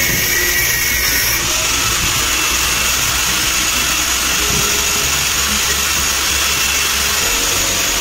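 Angle grinder with a thin abrasive cutting disc running steadily, cutting through a wall mixer's brass leg.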